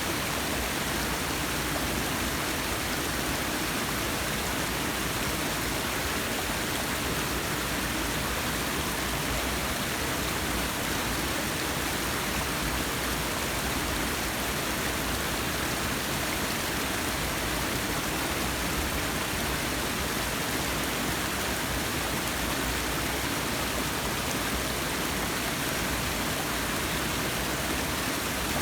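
Forest waterfall: a steady rush of falling water, even and unbroken.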